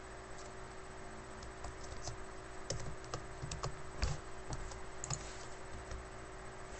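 Computer keyboard keystrokes, a dozen or so light clicks at uneven intervals, over a faint steady hum.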